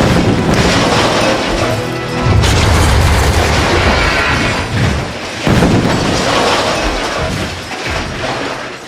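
Film soundtrack of music mixed with heavy booms and explosion rumble, with fresh loud hits about two and a half and five and a half seconds in.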